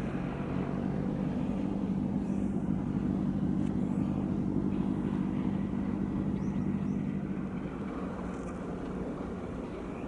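Steady low drone of ship's engines, a deep hum over a rumble, easing slightly near the end.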